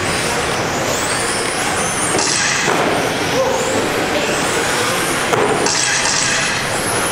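Electric 1/10 RC touring cars racing on a carpet track. Their motors give high whines that rise and fall as the cars speed up and slow down through the corners, over a steady hiss.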